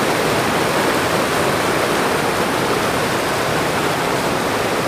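Loud, steady rushing of running water, an even hiss-and-roar with no breaks.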